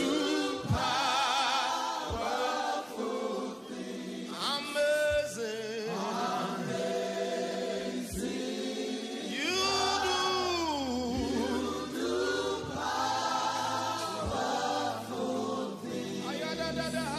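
Church choir singing a slow gospel worship song, the voices held long and wavering, with a few low thumps and a low bass line coming in about ten seconds in.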